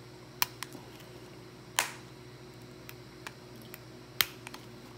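Scattered sharp clicks of a metal putty knife prying at the plastic case of a curling iron, with a short scrape about two seconds in and a sharp click a little after four seconds.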